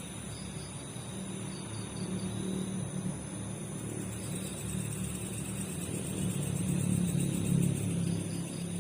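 Low mechanical rumble like a motor vehicle's engine, swelling in the second half and easing slightly near the end.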